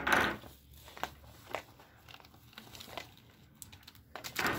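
Paper gift bag rustling and crinkling as hands handle it and rummage inside, with a loud burst of rustling at the start, faint crackles in between, and another loud rustle near the end.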